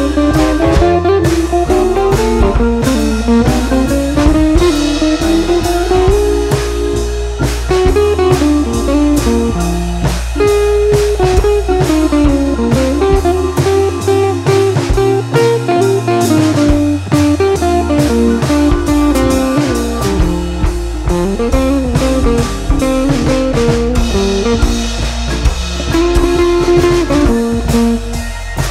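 Background music: a blues-style tune with a gliding guitar melody over bass and a steady drum beat.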